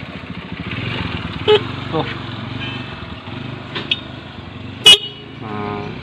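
A steady motor hum with several sharp clicks, the loudest just before the end, followed by a short pitched hum.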